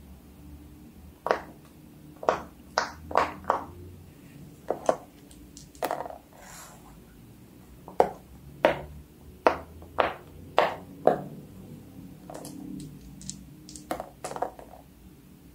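Fidget toys being handled: about twenty irregular sharp pops and clicks, some coming in quick pairs.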